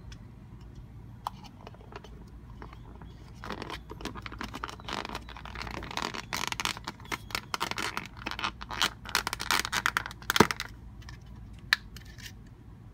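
Thin clear plastic half-shells of an 80 mm bath bomb sphere mold being handled, scraping, crackling and clicking against each other and against the fingers. The handling is busiest in the middle, with a sharp click about ten seconds in and another a second later.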